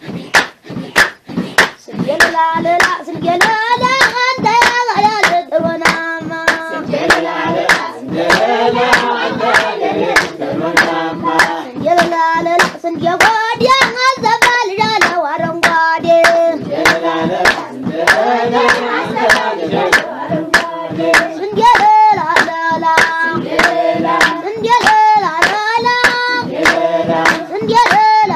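Steady rhythmic hand clapping, about two claps a second, with a group of voices singing over it from about two seconds in.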